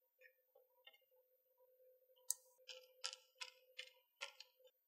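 Faint clicks of a small screwdriver turning the clamp screws of a green screw-terminal block, tightening the hot-end power wires down firmly. About eight light ticks come in the second half, over a faint steady tone.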